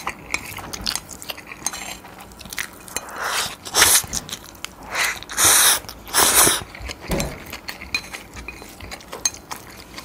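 A person slurping instant cup-ramyeon noodles with melted cheese: four long slurps, starting about three seconds in. Small clicks and chewing sounds come between them.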